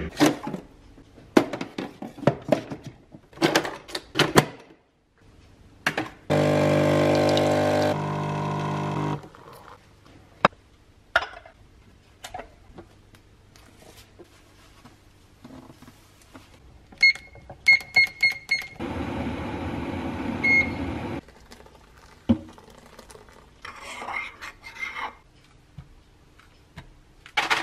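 Capsule espresso machine: clicks as its lever is worked and a capsule goes in, then the pump buzzes steadily for about three seconds while it brews, dropping in level partway. Later there is a quick run of short high beeps and a couple of seconds of appliance hum, with clinks of bowl and spoon between.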